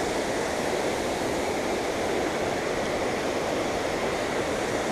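Steady rush of flowing creek water, an even, unbroken noise.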